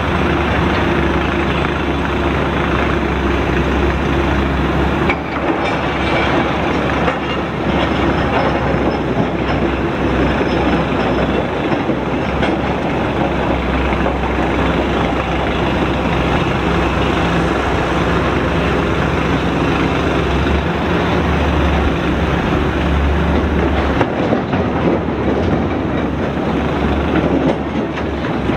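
Loaded HOWO 8x4 dump truck driving on a gravel quarry haul road, its diesel engine running steadily under the noise of the truck on the move.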